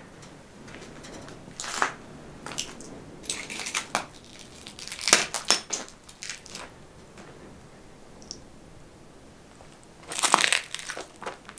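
Boots crunching over a gritty floor strewn with litter, a string of short crushing steps, the loudest about five seconds in and again near ten seconds.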